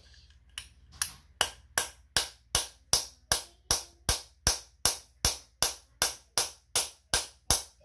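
Hammer tapping steadily on a socket, about two and a half strikes a second, driving a new motor coupler onto its shaft on a Kenmore 80 Series washer.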